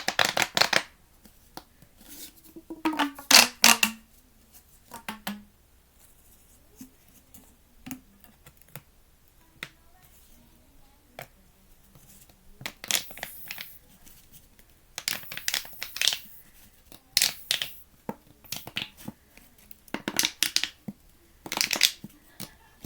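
Plastic pop tube fidget toys being stretched and squashed, their corrugated sections crackling and rasping in irregular bursts with quieter pauses between.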